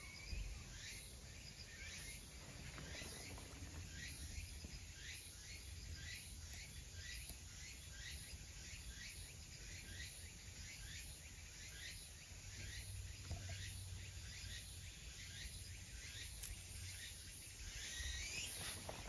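A bird chirping over and over in short falling notes, about twice a second, over quiet outdoor ambience with a faint high pulsing hiss.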